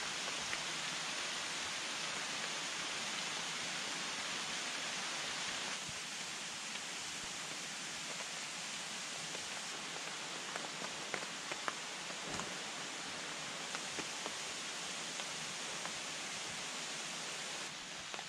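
Steady hiss of rain falling through the forest, with a few faint sharp ticks about halfway through.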